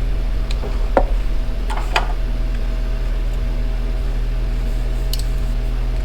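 A steady electrical-sounding hum, as from a fan or heater, with a few light knocks and clicks from hand-handling the compression tester and tools, about one and two seconds in and once more near the end.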